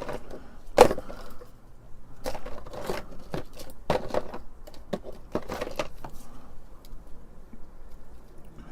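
Old ribbon cables with plastic connectors being rummaged through and handled: irregular clacks and rustling, the loudest clack about a second in, quieter over the last couple of seconds.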